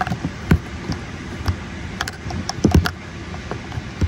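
Irregular clicks and knocks of two screwdrivers probing inside an airliner seat's armrest tray-table compartment to fish out a jammed hand-sanitizer bottle, over a steady low background noise. The loudest knocks come about half a second in and again just before three seconds in.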